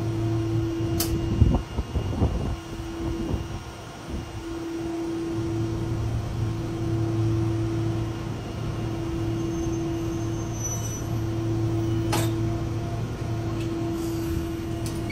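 Steady two-tone electrical hum inside the cabin of a Fukui Railway tram standing at the platform. A few low knocks come a couple of seconds in, and a single sharp click comes near the end.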